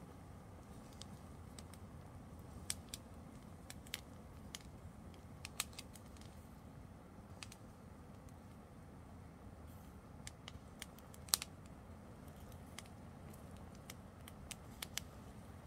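Small fire of a burning dress and dry grass crackling: sharp, irregular pops, about two a second, over a faint low background noise, with one louder pop about eleven seconds in.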